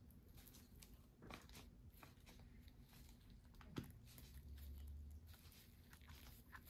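Near silence: faint crinkles and clicks of disposable plastic gloves handling a plastic syringe of lip gloss, with one sharper click nearly four seconds in.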